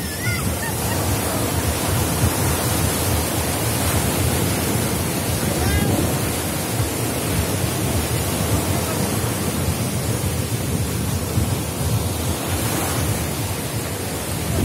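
Sea surf breaking and washing up the beach in a steady, continuous wash, with wind rumbling on the microphone.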